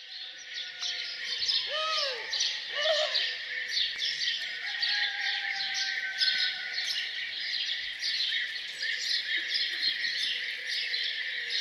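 Many small birds chirping densely and continuously in a morning village ambience, their short high calls overlapping. About two seconds in, two short arched calls from a larger bird stand out lower down.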